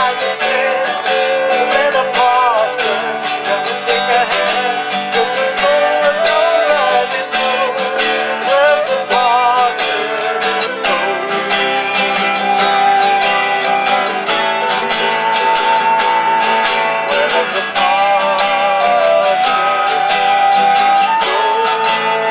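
Acoustic guitar strumming with a flute playing the melody over it, the melody moving quickly at first and then settling into long held notes in the second half.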